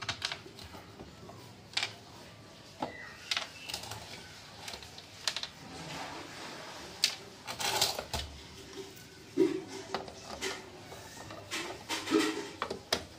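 Irregular clicks and knocks of a mixer grinder's plastic base being handled, turned over and screwed back together with a screwdriver.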